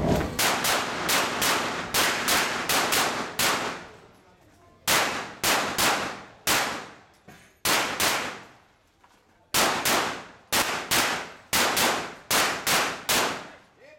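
Glock 17 Open-division 9mm pistol firing rapid strings of shots, each crack ringing out briefly. The shots come in three quick bursts separated by pauses of a second or two.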